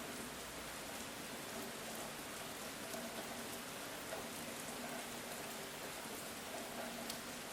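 Steady rain falling on the ground, an even hiss with scattered individual drops ticking.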